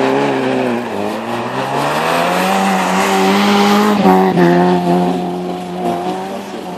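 Rally car engine at high revs as the car slides through a snowy bend and passes close by. The engine note dips, then climbs. A rush of noise peaks as it goes past about four seconds in, and a steady high engine note follows as it pulls away.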